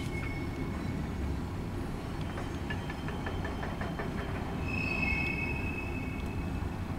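Freight train's covered hopper cars rolling past with a steady low rumble. A quick run of light clicks comes around three seconds in, and a high steel-wheel squeal rises about four and a half seconds in and holds for about a second and a half.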